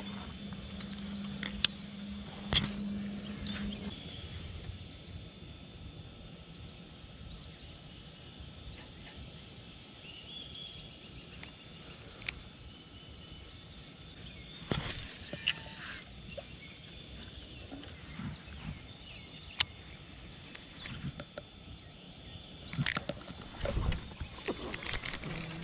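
Birds chirping in the background of quiet outdoor ambience, with a few sharp clicks and knocks from handling a fishing rod and reel.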